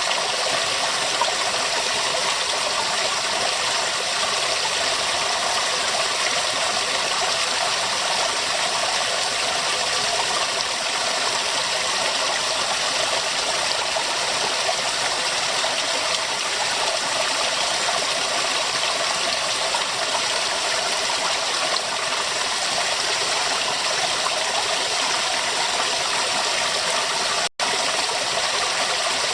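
River water running steadily, an even rushing sound with no let-up, cutting out for an instant near the end.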